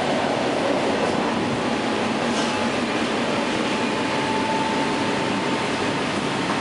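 Inside an EP2D electric commuter train running at speed: the steady rush and rumble of the wheels on the rails. A faint, steady high whine comes in about halfway through.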